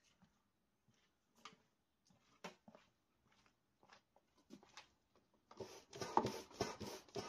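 Hand-operated stand-up pump inflating an inflatable paddle board: a few faint taps, then about five and a half seconds in, quick pumping strokes with a rush of air, about five strokes a second.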